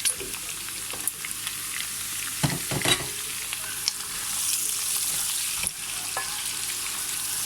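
Carrots and chicken gizzards sizzling in hot vegetable oil in a pan, with a steady hiss. They are stirred with a utensil that knocks against the pan a few times, loudest about two and a half to three seconds in.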